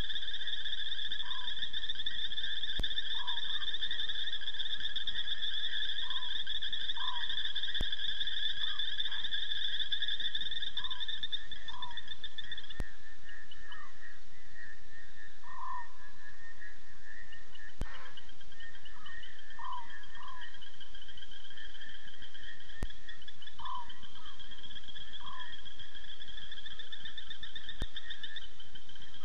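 Night chorus of frogs and insects: two steady high-pitched trilling bands, the higher one dropping out for a few seconds midway, with short frog calls repeated irregularly every second or two. A faint click comes about every five seconds.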